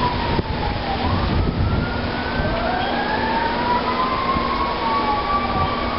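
Strong storm wind gusting against the microphone with a heavy low rumble, while several thin whistling tones slide slowly up and down and cross one another as the wind howls. These are tropical-storm-force gusts from a passing hurricane.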